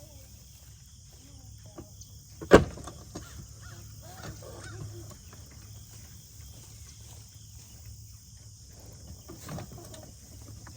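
A single sharp knock about two and a half seconds in, over a quiet outdoor background with a few faint bird calls.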